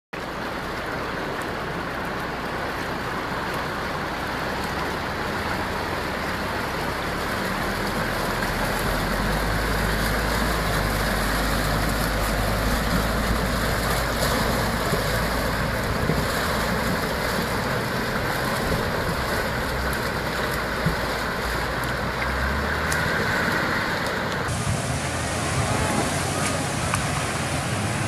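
Land Rover Discovery wading through a river: steady rushing and splashing of water against the body with the engine running under it. The sound changes abruptly about three-quarters of the way through.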